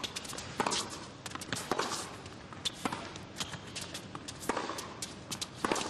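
Sharp knocks of a tennis ball off racket strings and court surface, coming roughly once a second at uneven spacing, over a low arena background.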